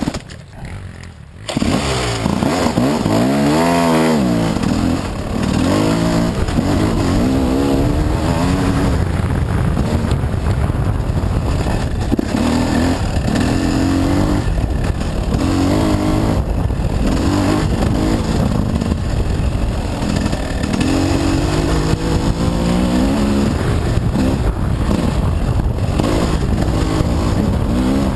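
Gas Gas dirt bike engine ridden on a trail, its pitch rising and falling again and again as the throttle opens and closes. It is quieter for the first second or so, then picks up.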